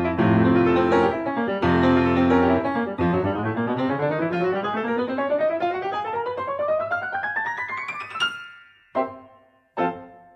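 Background piano music: full chords, then a long run of notes climbing steadily up the keyboard, ending in a few single chords struck about a second apart that ring out and fade.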